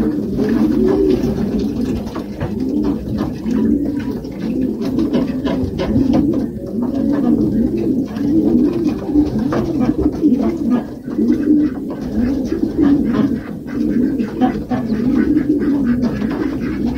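Breeding pigeons cooing nonstop, several birds overlapping in repeated rising-and-falling coos, with scattered light taps in the background.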